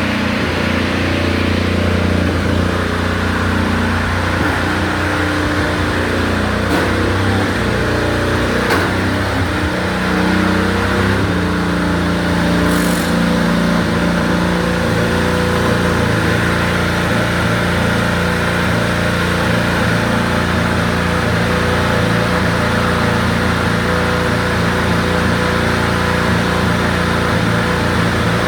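IndyCar's 2.2-litre twin-turbo V6 race engine being warmed up at a fast idle. Its pitch wavers up and down for the first ten seconds or so, then settles to a steady note.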